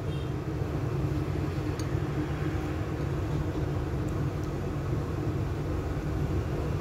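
Steady low hum and rumble of running kitchen equipment, with a faint held tone over it.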